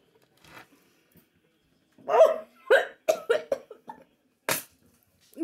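A woman gagging with her hand over her mouth: after a quiet start come several short, choked heaves, then a sharp cough about four and a half seconds in.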